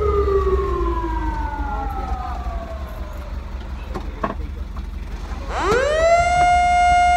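Fire truck siren winding down in a long falling tone, then about five and a half seconds in winding quickly back up to a steady high wail, heard from inside the truck's cab. The truck's engine rumbles low underneath.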